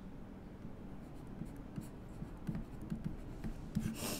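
Stylus writing on a pen tablet: faint, irregular scratching strokes as a word is handwritten, with a louder stroke near the end.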